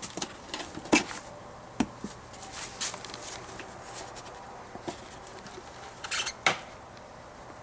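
Scattered plastic clicks and knocks as a minivan's tail-lamp assembly is worked loose from the body by hand, with a short cluster of them near the end.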